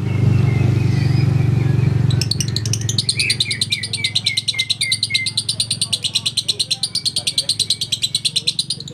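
A caged lovebird's rapid, high chattering trill (the 'ngekek' that fanciers train for), starting about two seconds in and running unbroken to the end. It is joined for a couple of seconds by a string of short falling chirps. A low steady hum is loudest at the start and fades out by about three seconds in.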